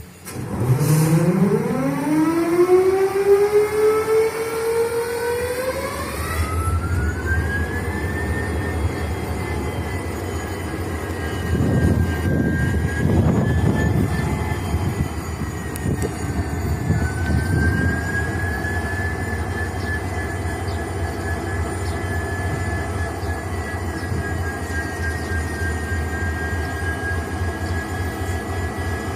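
EMD WDG4 (GT46MAC) locomotive's 16-cylinder two-stroke 710 diesel being cranked: a whine climbs steeply in pitch for about six seconds as the engine spins up, then it fires and settles into a low, steady idle rumble with a steady high-pitched whine above it, surging louder for a few seconds in the middle.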